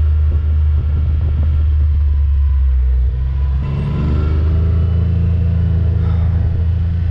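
A vehicle engine running with a steady low rumble while driving; about three to four seconds in the engine note dips and then rises, as when changing gear and accelerating.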